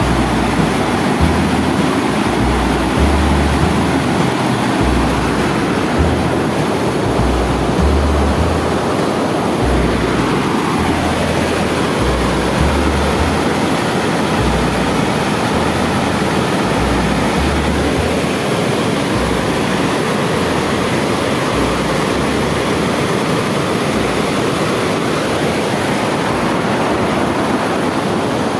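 Loud, steady rush of high water pouring over a river dam's weir, with intermittent low rumbling from wind buffeting the microphone.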